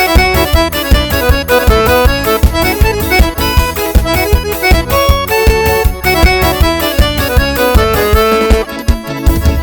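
Arrasta-pé forró backing track: an accordion plays a quick melody over a steady, driving bass and drum beat, which thins out briefly near the end.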